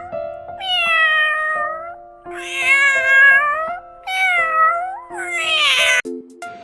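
A cat meowing four times, long calls that fall in pitch and then level off, over background music.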